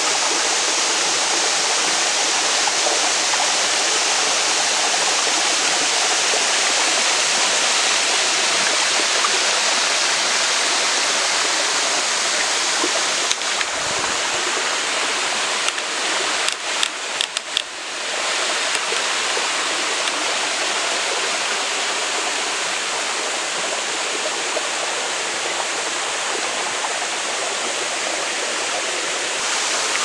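Steady rushing of a waterfall cascading over rock, with a few brief clicks and short dips in level about halfway through.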